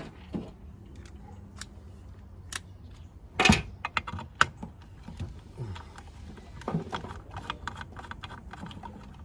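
Irregular small clicks, taps and clatter of LED light fixture parts and wiring connectors being handled and pulled apart, with a louder knock about three and a half seconds in.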